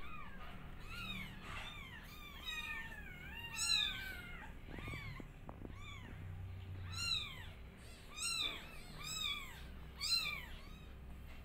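Several newborn kittens meowing: short cries that rise and fall in pitch. They overlap for the first few seconds, then come one at a time about once a second.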